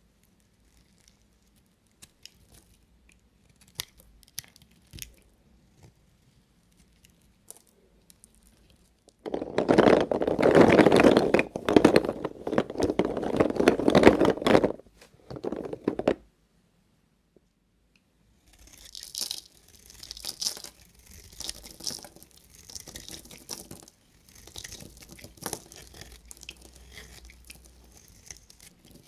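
A knife cutting through bars of soap: a few light scattered clicks, then about seven seconds of loud, dense crunching, then after a short pause a longer stretch of quieter, crisp scraping.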